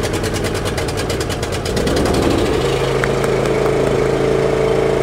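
Lawn mower engine running after finally starting. Its note changes about two and a half seconds in and then holds steady.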